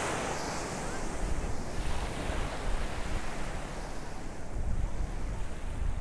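Small ocean waves breaking and washing up the beach in a steady surf hiss, with wind buffeting the microphone in a gusty low rumble.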